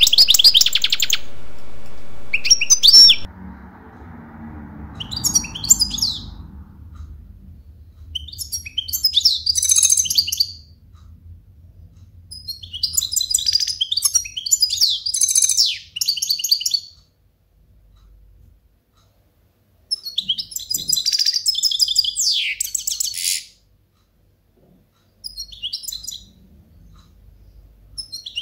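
European goldfinch singing: fast, high twittering phrases of one to four seconds each, with short pauses between them.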